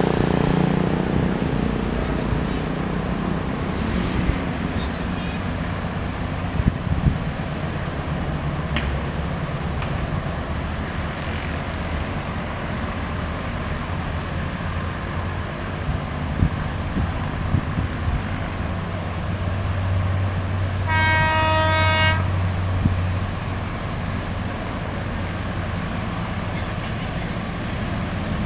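Diesel locomotive sounding its horn once, a single blast of about a second roughly three quarters of the way through, over a steady low rumble and outdoor background noise as the train approaches from a distance.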